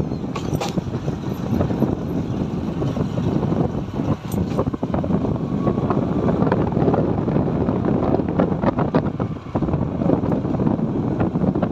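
Wind rushing over the microphone of a moving motorcycle, with the bike's engine running steadily under it. A couple of brief clicks come about half a second in and again around four seconds in.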